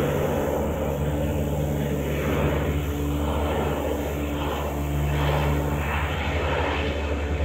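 Canadair CL-415 water bomber's turboprop engines running with a steady drone.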